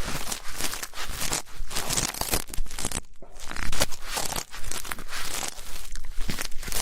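Ear-cleaning ASMR: a tool scratching and rustling inside a microphone's ear, in quick irregular crackly strokes with a brief pause around the middle.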